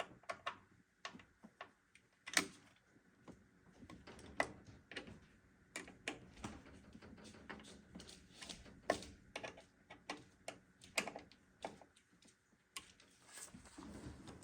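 Irregular small clicks, taps and knocks of hard parts being handled and fitted inside a desktop PC case, with a sharper knock about two seconds in and another about nine seconds in.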